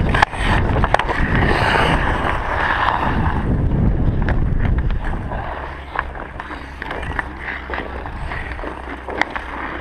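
Ice skate blades scraping and gliding over rough pond ice, with wind on the microphone, louder for the first five seconds and quieter after. Sharp clacks of hockey sticks hitting the puck or ice come through several times.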